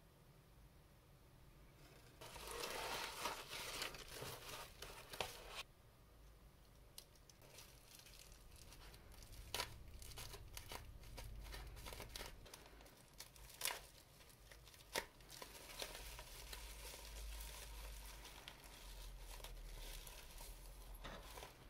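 Plastic bubble wrap crinkling and tearing as it is cut with a multitool knife blade and pulled off a pen. The crinkling comes in a dense stretch early on, then in bouts with a few sharp snaps.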